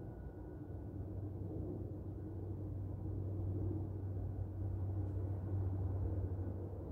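A steady low rumble of outdoor background noise with no distinct event, growing a little louder a couple of seconds in.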